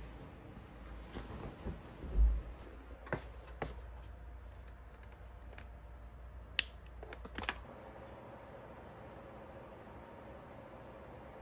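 Bedding rustling and a dull thump as someone settles into bed, then a sharp click from a bedside lamp's inline cord switch about six and a half seconds in, with a couple more small clicks. In the last few seconds, crickets chirping in a steady, fine pulse.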